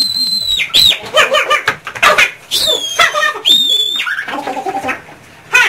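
Three shrill, held high-pitched squeals, each under a second and the middle one falling, from people clowning about, with voices and laughter in between.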